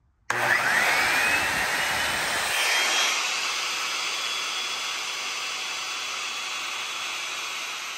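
Corded DeWalt circular saw switched on about a quarter second in, its motor whine rising in pitch as the blade spins up, then running steadily without cutting. It is drawing about 800 watts from a portable power station and runs normally.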